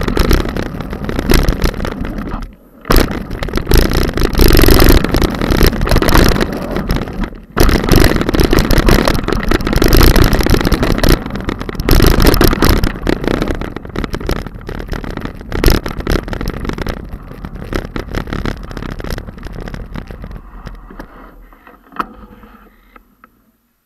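Wind buffeting a mountain-bike action camera's microphone, mixed with tyres and frame rattling over loose gravel and rock during a fast downhill run. The noise dies away near the end as the bike slows to a stop, leaving a few sharp clicks.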